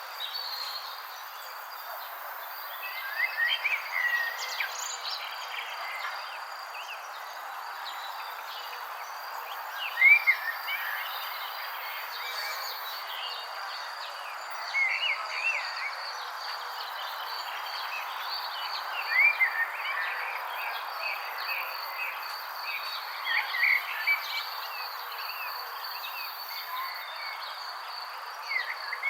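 Songbirds singing in a park: a short, chirpy phrase of arching notes repeats about every four to five seconds. Under it lie a steady background hiss and a steady high thin tone.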